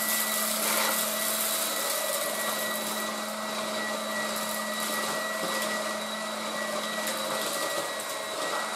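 Tefal Dual Force TY6751 cordless stick vacuum running steadily on the lower of its two suction settings, with a steady hum and whine over a rushing hiss, as its floor head is pushed over the floor picking up rice grains.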